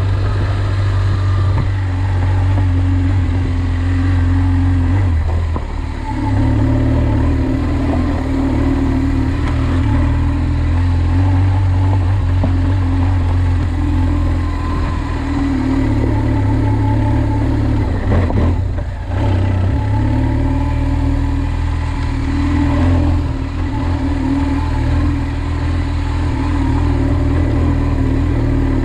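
A vehicle engine running steadily under load, with a constant pitch, dipping briefly about five seconds in and again about two-thirds of the way through.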